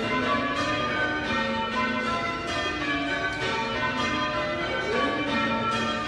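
A ring of eight church bells, mostly cast by John Taylor and Co with two Whitechapel trebles, being rung in changes: strikes follow one another in an unbroken even rhythm, each bell's ring overlapping the next.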